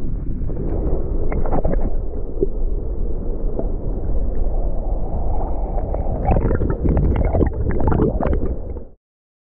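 Muffled underwater rumble and sloshing of shallow surf, recorded with the microphone under water. Bursts of crackling bubbles and clicks grow from about six seconds in, and the sound cuts off suddenly near the end.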